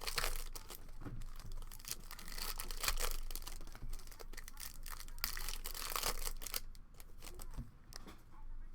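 Trading card pack wrappers being torn open and crinkled by hand, a run of crackling tears and rustles that thins out near the end.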